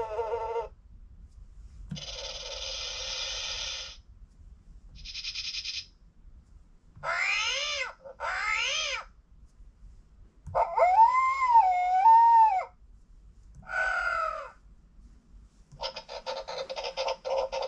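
LeapFrog 100 Animals Book electronic toy playing a string of short recorded animal sound effects through its small speaker, one after another with pauses between. They include two quick sweeping calls, a long wavering pitched call like a howl, and a fast pulsing sound near the end.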